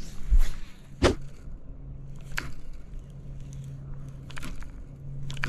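Baitcasting rod and reel being cast and then worked: a low thump near the start, a sharp click about a second in, and a few fainter clicks a second or two apart, over a low steady hum.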